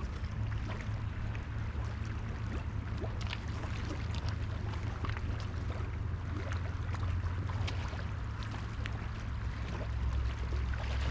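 Steady rushing of river current with a deep, constant low rumble, dotted with scattered faint ticks.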